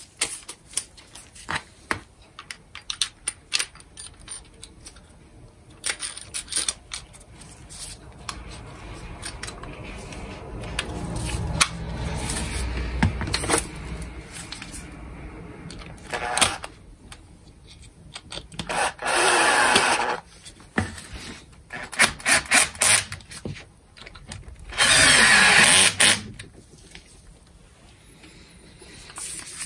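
Makita cordless drill-driver spinning twice in short runs of about a second and a half, each winding down at the end, while metal parts and hand tools click and clink on the workbench during reassembly of an angle grinder.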